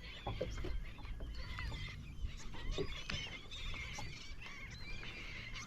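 A flock of seabirds calling continuously, many short overlapping squawks and chirps, over a low steady rumble.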